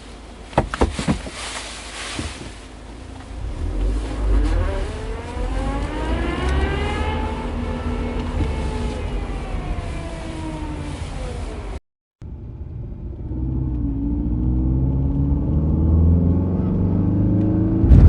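A motor vehicle's engine revving up and easing back down, over a low rumble, in two stretches with an abrupt break between them.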